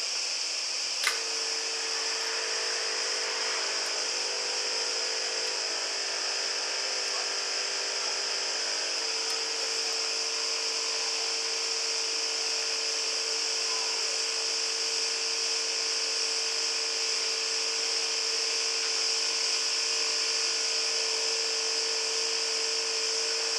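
QS-2008 SMD vacuum station's pump running steadily, a constant hiss with a steady hum under it. A single sharp click about a second in, after which the hum is stronger.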